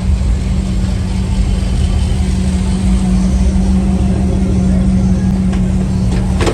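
Car driving at a steady pace: engine drone and road noise with a steady low hum, and a short click near the end.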